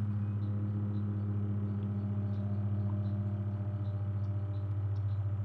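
A steady low motor hum: a deep, unchanging tone with evenly spaced overtones and a slight regular pulse, as of an engine or motor running at constant speed.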